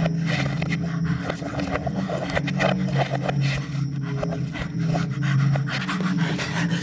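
A man breathing hard and ragged in distress, in irregular gasps, over a low steady hum.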